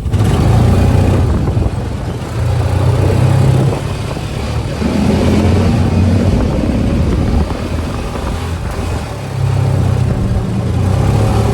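Small farm buggy's engine running as it is driven over bumpy ground, surging louder and easing off several times under a broad rushing noise.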